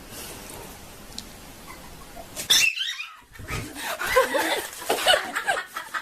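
A pet animal calling in a run of short cries with bending pitch, over background hiss. Before the cries there is a sharp loud sound with a falling pitch and a brief break.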